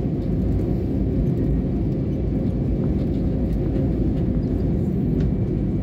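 Steady low rumble of an airliner's cabin as the jet rolls along the ground after landing.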